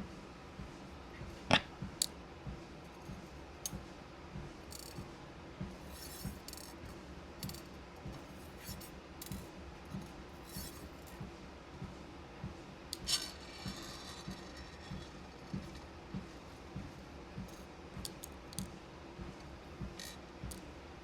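Steady footfalls on a walking pad, about two a second, with beads clicking and clinking now and then as they are sorted; the sharpest clink is about a second and a half in, and there is a small rattle of them just past the middle.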